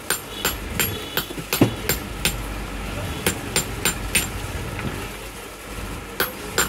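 Hand hammer striking a steel chasing punch held against an iron block: about a dozen sharp metallic taps at roughly three a second, a pause of about two seconds, then two more taps near the end.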